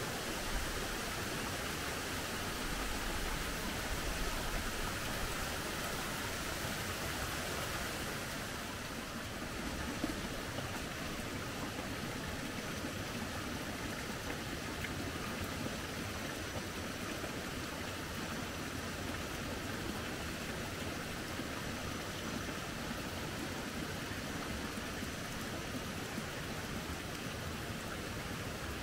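Steady rush of running water, an even hiss with no break, easing slightly about nine seconds in.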